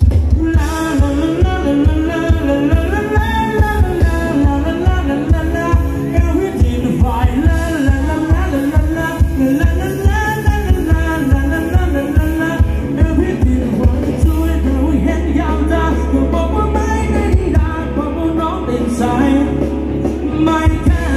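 Live band playing Thai ramwong dance music: a singer over a steady drum beat. About two-thirds through, the pulsing bass gives way to a held low bass note.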